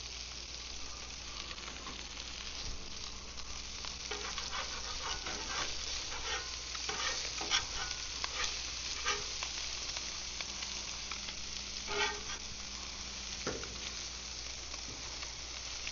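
Tuna and grouper fillets sizzling in butter on a very hot grill. A steady hiss runs throughout, with crackling and a few louder pops scattered through it.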